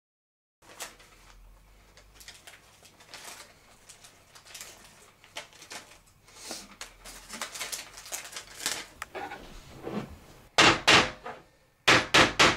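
A claw hammer driving a nail into a wooden board: three loud blows, a short pause, then four more near the end. Before them come scattered light clicks and knocks.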